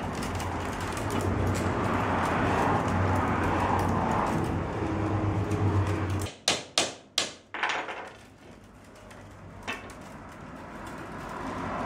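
Willow rods rubbing and rustling as they are woven into a basket, over a steady low hum. About halfway through come four sharp knocks in quick succession, then the sound grows quieter, with one more knock, before the rustling builds again.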